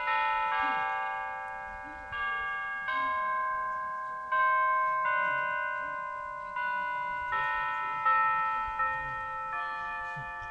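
A chime of tuned church bells in a bell tower playing a slow melody, with one bell struck about every second and each note ringing on and fading under the next.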